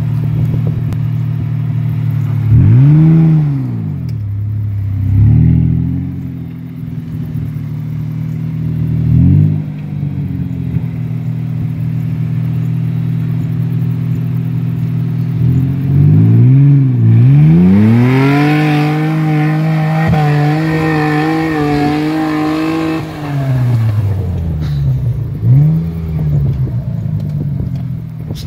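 Mitsubishi Pajero's 3.0-litre V6 idling and blipped sharply several times, then revved hard and held high for about seven seconds as the truck drives up a steep dirt slope, before dropping back and blipping twice more.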